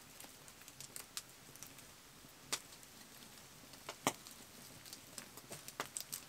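Small wood fire crackling, with irregular sharp pops and snaps of twigs as they are fed into the flames; the loudest snaps come about two and a half and four seconds in.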